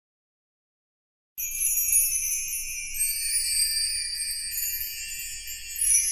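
Complete silence for about the first second and a half, then a jingle-bell sound effect starts abruptly and keeps jingling, thin and high with no low end.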